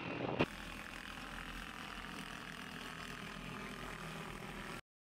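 Electric multi-rotor eVTOL aircraft (AutoFlight) flying, its propellers giving a steady whirring noise with a low rumble. There is a sharp click about half a second in, and the sound cuts off suddenly near the end.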